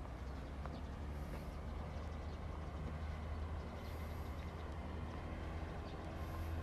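Outdoor background noise dominated by a steady low rumble, with no distinct events.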